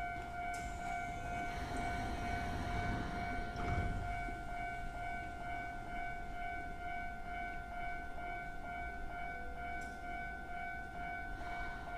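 Keisei 3000-series electric train standing at the platform, giving off a steady electrical whine at several pitches over a low rumble; a brief louder thud about three and a half seconds in as its doors close.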